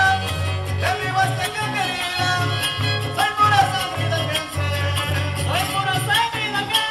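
Son jarocho (Veracruz huapango) music for a dance: a repeating low bass pattern under a busy melody with many quick strummed or struck strokes.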